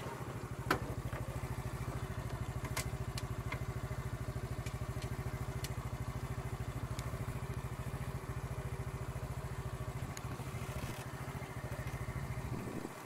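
Motorcycle engine running steadily at low revs, an even pulsing note, with a few sharp clicks over it. The engine sound fades near the end.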